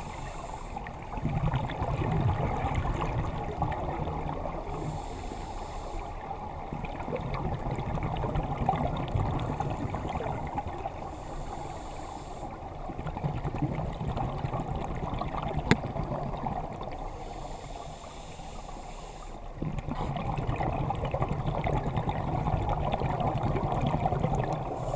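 Scuba diver breathing underwater through a regulator: a short hiss on each inhalation alternates with a longer rumble of exhaled bubbles, a breath roughly every six seconds. One sharp click comes about two-thirds of the way through.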